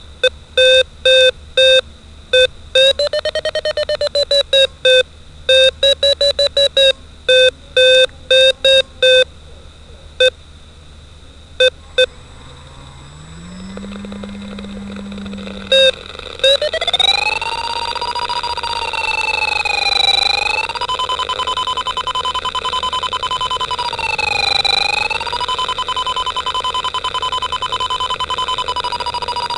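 Electronic variometer tones from a DIY Arduino sailplane vario, played through a loudspeaker: first short beeps, some in quick runs with the pitch sliding up and down, then a steady high tone that glides up and holds, dipping twice, signalling that the glider is climbing. A low hum rises briefly just before the steady tone starts.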